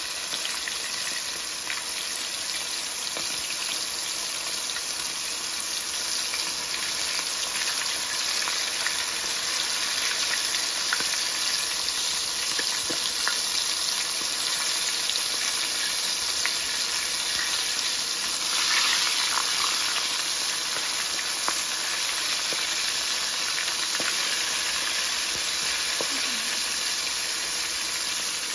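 Flour-coated chicken pieces deep-frying in hot oil: a steady sizzle with scattered small pops and crackles, briefly louder about two-thirds of the way through.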